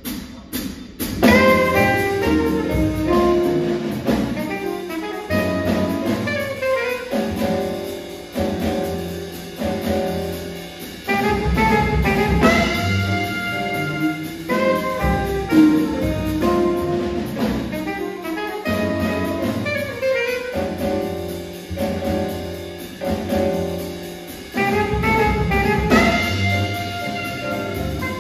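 Jazz quartet of saxophone, grand piano, upright bass and drum kit playing an up-tempo tune, the saxophone carrying the melody over the rhythm section. A few sharp clicks lead in and the band enters about a second in.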